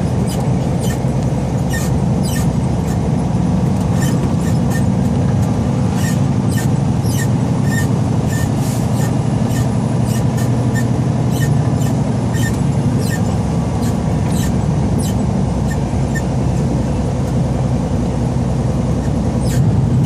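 Semi-truck cab interior on the highway: a steady low drone of engine and road noise, with frequent short squeaks and clicks scattered irregularly over it.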